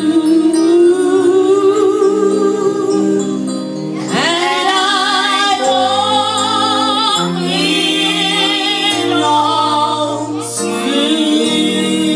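A woman singing a gospel praise song into a microphone with a wide vibrato, over sustained instrumental accompaniment. A new phrase begins with an upward swoop about four seconds in.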